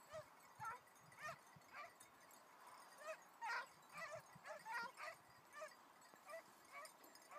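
Faint, distant pack of basset griffon vendéen hounds giving tongue as they work a hare's line: short high yelping cries about every half second, several voices overlapping near the middle.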